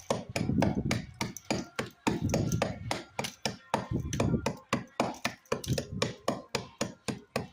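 Rapid, even hammer blows, about four a second, with stretches of lower rumbling noise between them.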